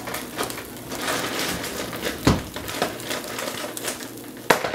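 Plastic bag of frozen diced potatoes O'Brien being handled and opened: crinkling and rustling, with a few sharp clicks, the loudest about two seconds in and again near the end.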